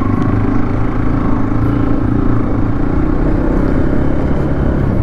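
Motorcycle engine running steadily as the bike is ridden slowly over dirt ground.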